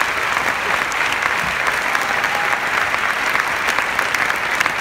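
Large cinema audience applauding: many hands clapping in a dense, steady mass.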